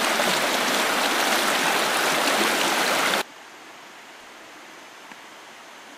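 Shallow creek running low, rushing steadily over rocks in small riffles. It cuts off sharply about three seconds in, leaving only a faint steady hiss.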